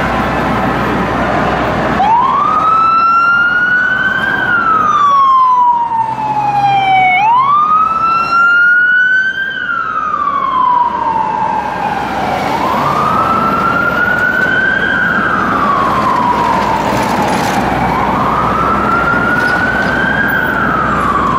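Siren of an FDNY battalion chief's pickup wailing over traffic noise, starting about two seconds in. Each cycle sweeps quickly up, peaks, then glides slowly down, repeating about every five seconds.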